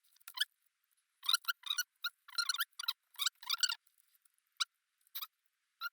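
Steel feeler gauge blade being pushed into a tight clearance on an engine cylinder, squeaking and scraping against the metal in a string of short, high squeaks. They bunch together in the middle, then come singly toward the end. The blade is too thick to go in.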